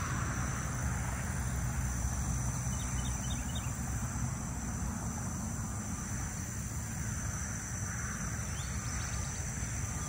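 Steady outdoor ambience: a continuous high insect drone over a low, unsteady rumble, with a few faint chirps a few seconds in.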